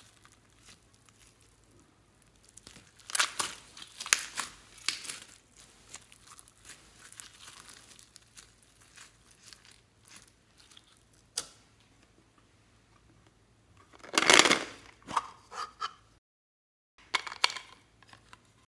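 Yellow foam-bead slime (floam) being stretched, squeezed and pulled apart by hand, giving irregular crackling and crunching with the loudest bursts about three to five seconds in and again around fourteen seconds. After a brief silence near the end there is one short burst of handling noise.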